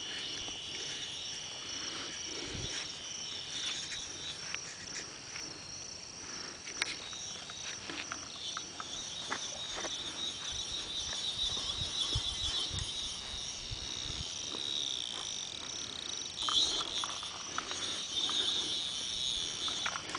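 Steady chorus of crickets and other night insects, shrilling in several high bands, with scattered small clicks and knocks over it.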